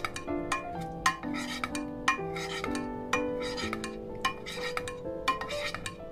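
Knife blade cutting through set gulaman jelly in a glass baking dish, clicking and scraping against the glass with short irregular strokes a few times a second, over light background music.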